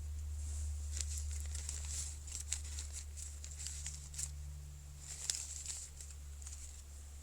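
Wood campfire crackling: scattered small pops and clicks, busiest between about one and six seconds in, over a low steady rumble.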